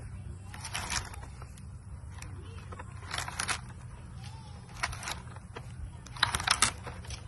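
Short bursts of rustling and scraping, four times, the last the loudest, as a hand handles a bunch of green coconuts on the palm, over a steady low hum.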